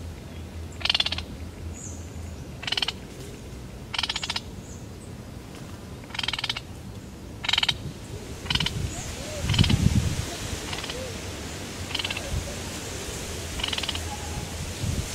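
Frogs calling from the water: short rattling calls, one every second or two. A low thump a little past the middle is the loudest sound.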